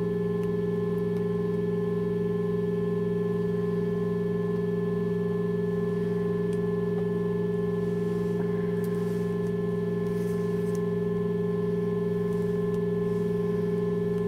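Several steady electronic tones played together through a speaker, held unchanging at one pitch each, the strongest low. Faint rustling of tape being handled about eight to eleven seconds in.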